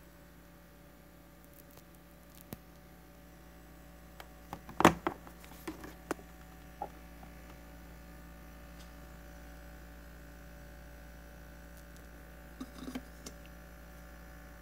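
Clicks and knocks from opening the lid of a Cuchen electric rice cooker and handling its empty inner pot, the loudest clack about five seconds in and a few softer knocks near the end. A faint steady electrical hum lies underneath.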